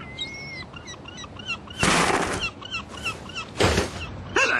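Birds chirping, with short chirps repeated in quick succession. Two louder rushing noises break in, one about two seconds in and another near the end.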